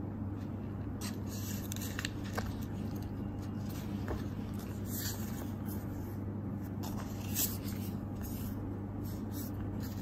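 Clear plastic stamp sheet and paper sticker sheets rustling and crinkling in the hands as they are shuffled, in short scattered rustles over a steady low hum.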